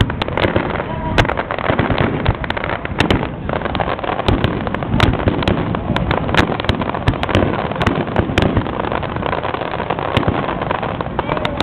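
Fireworks display: many irregular pops and bangs from bursting shells, several a second, over a continuous crackle.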